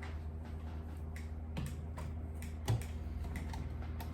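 A few light, scattered clicks and taps of small objects being handled on a workbench, with a steady low electrical hum underneath.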